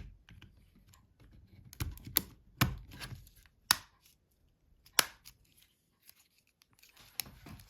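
Plastic housing parts of a Nokia 7210 being handled and fitted together by hand: about half a dozen sharp plastic clicks and snaps, spread out, with light rustling of the parts in between.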